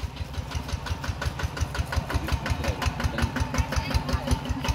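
An engine idling steadily off-camera, a fast even beat of about eight pulses a second.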